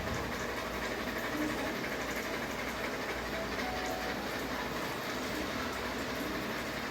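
Ceiling fan running steadily: a continuous whir with faint steady tones in it.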